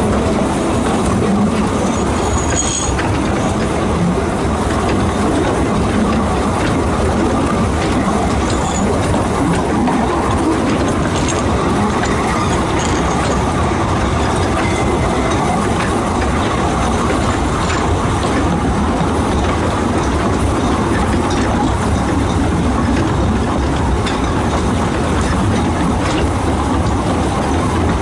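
A 2 ft gauge steam-hauled train running, heard from its carriage: a steady rumble of wheels on the track with faint ticks over the rail joints.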